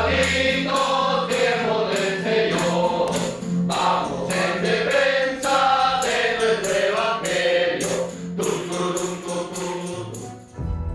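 A group of police officers singing a Christian chorus together, over a steady beat.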